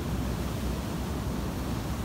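Pacific Ocean surf, breaking waves and foaming whitewater washing in, a steady deep rushing noise with wind mixed in.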